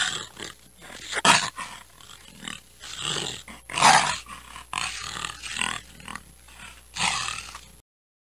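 Cheetah growling, a string of harsh, rasping snarls at uneven intervals that stops abruptly shortly before the end.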